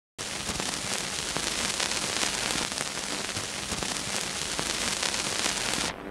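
Dense steady crackle and hiss with a faint low hum. It starts suddenly and cuts off just before the end: surface noise of old, worn film.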